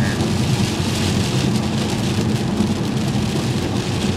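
Steady rain on a moving car's windshield and body, mixed with the hiss of tyres on the wet road and a low engine and road drone, heard inside the cabin.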